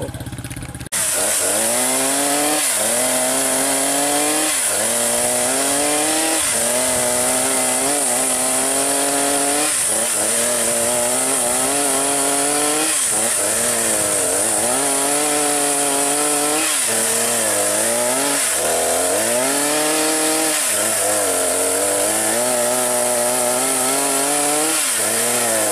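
Petrol chainsaw cutting into a tree trunk. It starts suddenly about a second in, and the engine's pitch dips and recovers every second or two as the chain bites into the wood, with a steady high hiss over the engine.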